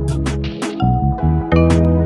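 Background music with a steady beat, a heavy bass and held chords.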